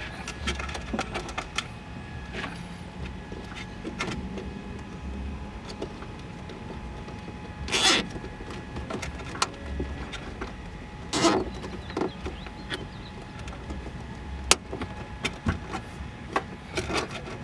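Hands handling wiring and plastic parts: scattered light clicks and rustles, with two short rasping bursts about eight and eleven seconds in, a cable tie being pulled tight around the wiring.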